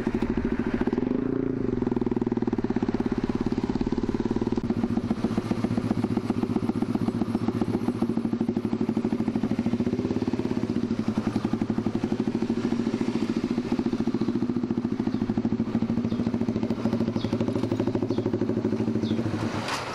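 Honda fuel-injected underbone motorcycle's single-cylinder engine running at low speed and idling steadily, with a slight blip about a second in.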